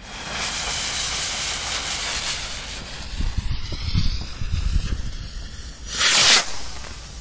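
A lit firework hissing and crackling for about five seconds, then a short, louder rush of noise about six seconds in.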